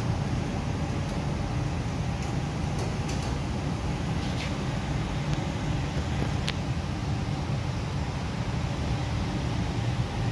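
Steady low rumble of indoor background noise, with a few faint clicks.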